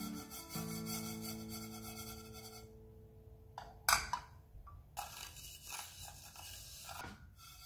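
Sesame seeds being dry-toasted in a nonstick frying pan, swished by the pan and stirred with a wooden spatula: a dry, scratchy rustle of seeds against the pan in short strokes, with one sharp knock about four seconds in.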